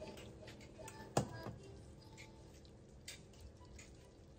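Scattered light clicks and knocks of kitchen items being handled while cooking, with one sharper knock about a second in.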